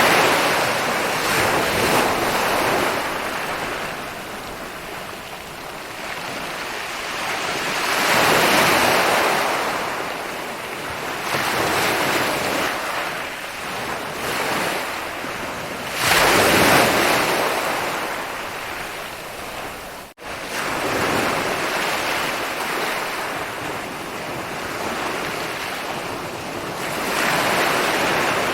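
Ocean waves rolling in and breaking on a beach, the surf swelling and ebbing every few seconds, with a sharper surge about two-thirds of the way before a split-second drop-out.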